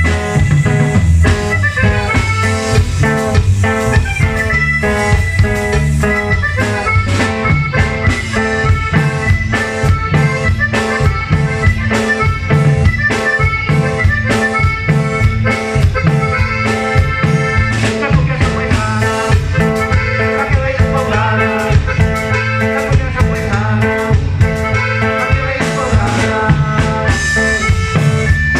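Norteño band playing an instrumental cumbia passage, with no singing. Sustained accordion melody lines over guitar-type strings, bass and a drum kit keeping a steady beat.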